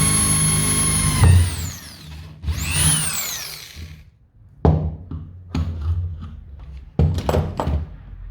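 A power tool's electric motor running at full speed with a high whine, cut off about a second in and winding down. Near three seconds in it is briefly triggered again, the whine rising and falling. In the second half come several sharp knocks and clunks.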